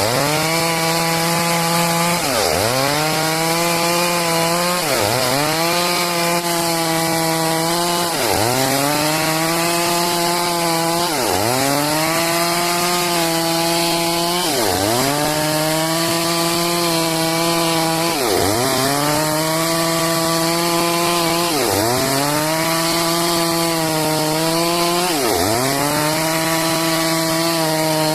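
Stihl MS 382 two-stroke chainsaw running at high speed while sawing a log into boards. Its pitch dips sharply and climbs straight back about every two to three seconds.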